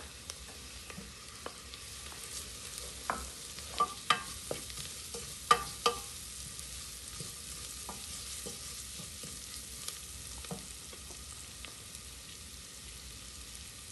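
Sliced shallots and spices sizzling steadily in oil in a stainless steel saucepan while a wooden spoon stirs them, knocking sharply against the pot several times, loudest around four to six seconds in.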